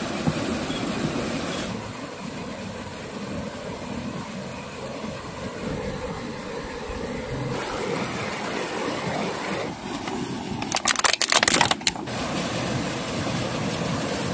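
Night ambience by a flowing waterfall stream: a steady rush of water with a thin, high, steady insect trill over it. About eleven seconds in there is a brief burst of loud rustling and clattering.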